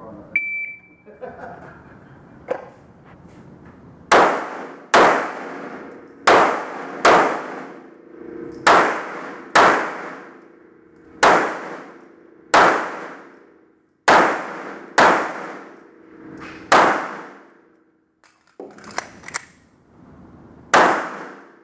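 Shot timer's start beep, then about a dozen pistol shots from a Smith & Wesson M&P, mostly fired in quick pairs under a second apart as the shooter engages targets, with one last shot near the end.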